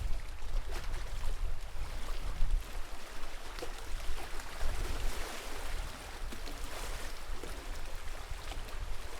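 Lake water lapping and splashing in small irregular sounds, with gusts of wind rumbling on the microphone.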